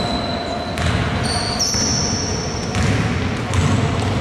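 A basketball bouncing as players dribble on an indoor court, with short high squeaks of sneakers on the floor and the echo of a gym hall.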